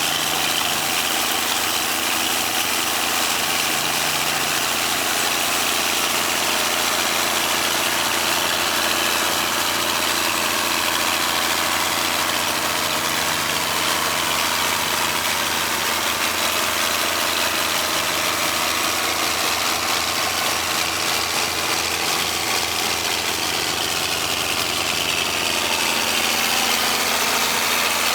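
An engine running steadily at an even speed for the whole stretch, with no revving.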